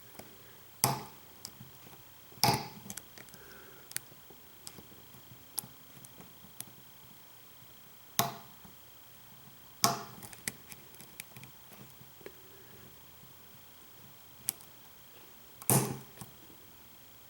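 An American Lock 5200 padlock being picked: five sharp metallic clicks spread a few seconds apart, with faint ticking of the pick against the pins in between.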